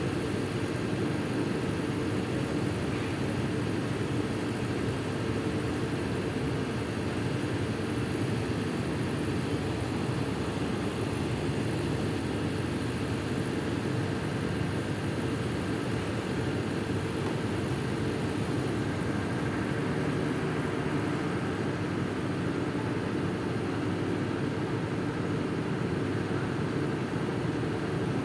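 Steady drone of heavy machinery running, level and unchanging, with a low constant hum in it.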